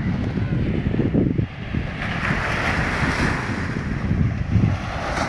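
Sea waves breaking and washing up a sandy beach, with strong wind buffeting the microphone in a heavy low rumble.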